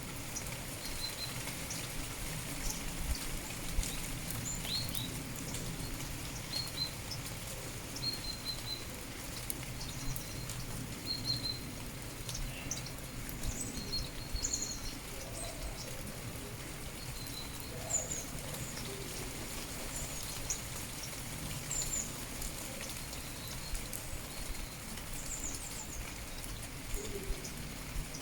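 Steady light rain pattering, with small birds chirping: short high calls and quick sliding notes come every second or two.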